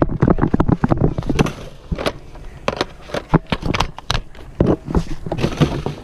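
A rapid, irregular clatter of thumps, clicks and scrapes from running footsteps and jostling gear during play, busiest in the first half and thinning out toward the end.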